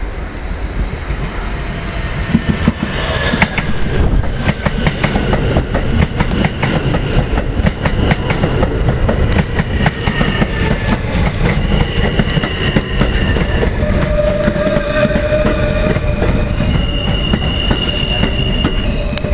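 R160 subway train pulling into the station: a heavy rumble with wheels clicking over rail joints, and whining tones that slide down in pitch as it slows to a stop.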